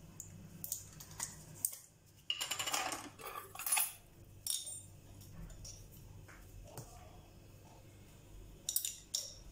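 A spoon clinking and scraping against a sauce jar as Schezwan sauce is scooped out and dabbed onto a pizza base. The clinks are scattered, with a quick run of them about two and a half seconds in and a few more near the end.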